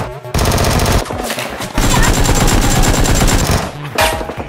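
Rapid automatic gunfire from a video game's sound track, in bursts: a short burst near the start, then a longer, louder one from about two seconds in.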